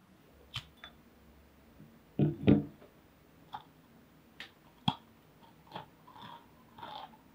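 A scatter of light clicks and taps, with two heavier, duller knocks in quick succession about two seconds in and a sharp click near the middle.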